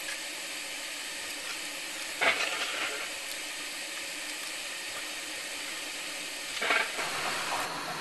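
Steady hiss of an air-conditioning unit running, with two brief louder noises from handling on the workbench: one about two seconds in and one near the end.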